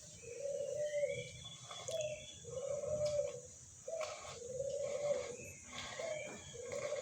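A dove cooing over and over, each phrase a short note followed by a longer, held low coo, repeating about every two seconds. Fainter, higher chirps from other birds sound in the background.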